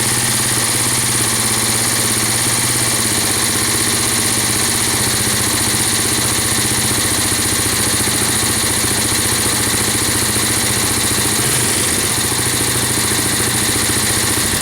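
Freshly rebuilt Honda Rancher 350's single-cylinder four-stroke engine idling steadily on choke just after its first start.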